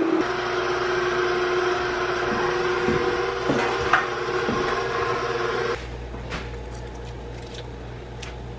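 Handheld immersion blender running steadily in a pot of tomato sauce, its motor pitch dipping briefly a few times. About six seconds in it stops, leaving a quieter stretch with a few light clicks.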